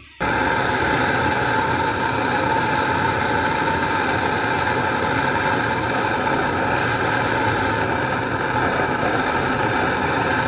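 A machine that starts abruptly and runs at a steady, loud hum with several steady tones over a noisy bed.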